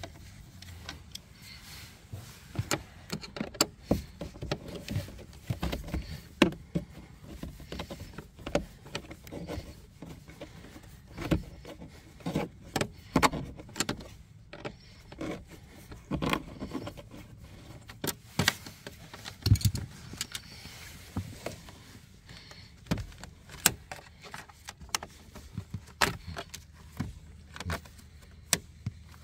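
Irregular clicks, knocks and rattles of plastic dashboard trim, a head unit and its wiring being handled and fitted by hand.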